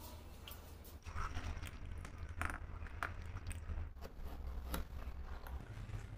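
Utility knife trimming the edge of a leather sheath: irregular short scrapes and clicks as the blade cuts through the leather, over a steady low hum.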